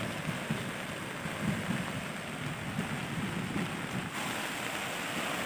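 A river in flood, fast muddy water rushing with a steady hiss, and uneven low buffeting from wind on the microphone.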